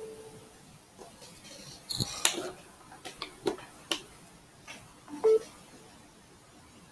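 A series of sharp clicks and knocks, with a short beep about five seconds in.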